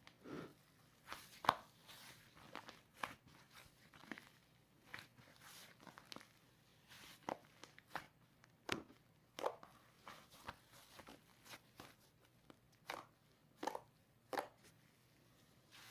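Cloud slime being squished and poked by hand: faint, irregular crackling taps and soft squishes, about one or two a second.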